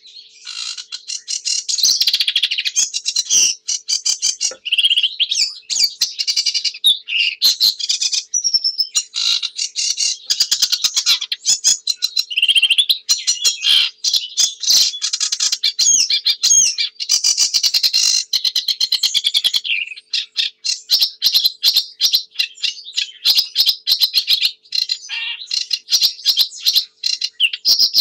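Sedge warbler singing: a long, fast, nearly unbroken stream of varied chattering, trilled and whistled notes, with only a brief pause partway through.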